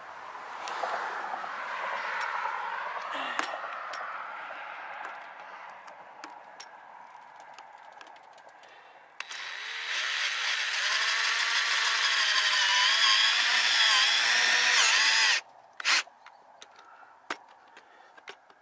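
Cordless drill running against a steel roof panel, driving a screw: a wavering run near the start, then a longer, louder run that stops abruptly, and a brief blip of the trigger just after.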